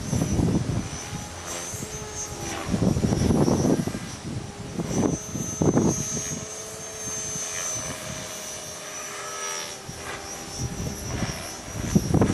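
Electric Mikado Logo 400 RC helicopter in flight, its motor and rotor whine holding steady high tones that drift slightly in pitch. Strong wind gusts buffet the microphone several times, rumbling over the whine.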